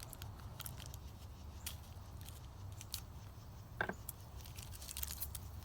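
Faint clicks and rustles of MRE packets being handled and sorted, over a low steady hum, with one sharper brief sound about four seconds in.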